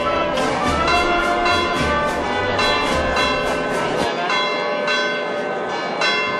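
Church bells pealing, struck in quick succession so that their tones ring on over one another.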